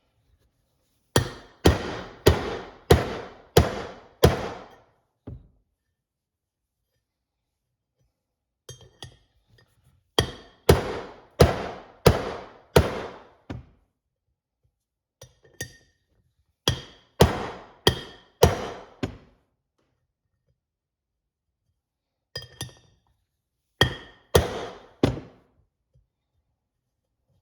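Hammer striking a bushing driver to drive a new bushing into a 4R70W automatic transmission part. The blows come in four runs of about five to eight strikes each, roughly two a second, every strike ringing metallically.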